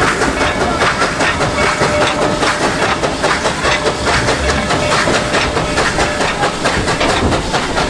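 Coal-fired narrow-gauge steam train running: a steady, dense rattle and clatter from the cars and wheels, with steam hissing.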